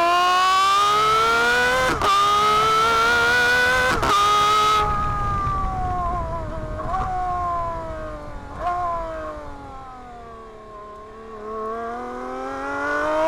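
Aston Martin Valkyrie's naturally aspirated 6.5-litre V12 at high revs. It climbs in pitch through two quick upshifts in the first four seconds, then winds down with short throttle blips on the downshifts, and revs up again near the end.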